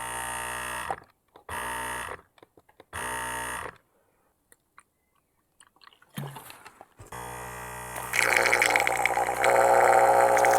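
A small electric pump in a Karcher OC3 mobile cleaner buzzing in three short bursts that start and stop abruptly. After a short rattle, it runs continuously, louder from about a second after that.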